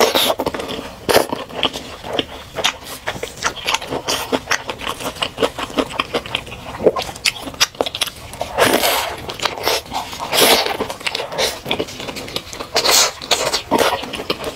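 Close-miked eating: biting into and chewing a hamburger, a dense run of crunching and wet mouth clicks with a few louder bites.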